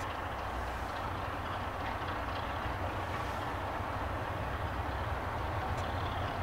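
British Rail Class 33 diesel locomotive's Sulzer 8LDA28 engine running as it slowly approaches hauling coaches: a steady low rumble with a broad mechanical noise, growing slightly louder as it nears.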